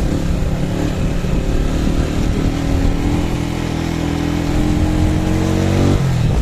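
Small motorcycle engine running under way, its pitch climbing slowly as it gathers speed, then dropping sharply near the end.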